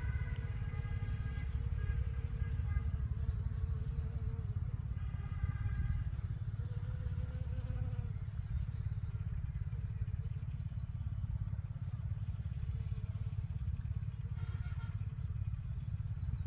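Honey bees buzzing faintly now and then as they forage on black cumin flowers, over a steady low rumble.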